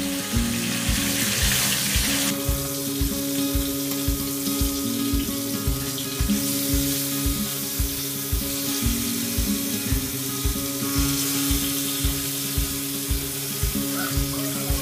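Katla fish pieces sizzling as they fry in hot mustard oil, with background music with a steady beat playing over it.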